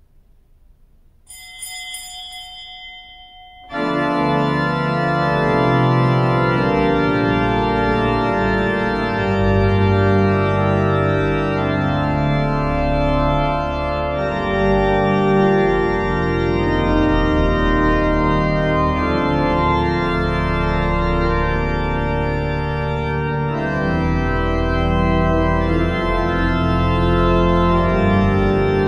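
Church pipe organ playing the entrance music of Mass: loud, sustained full chords that shift as the piece moves on, starting about four seconds in. Just before it comes a brief ringing sound.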